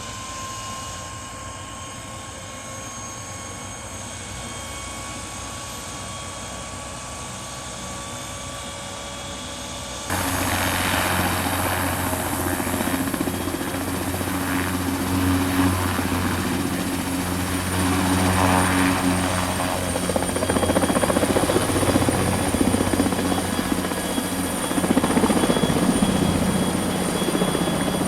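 Sikorsky S-58ET helicopter with its Pratt & Whitney Canada PT6T-3 Twin-Pac turboshaft running, a turbine whine rising slowly in pitch. About ten seconds in the sound turns suddenly louder and fuller, with a strong low hum from the engine and rotor.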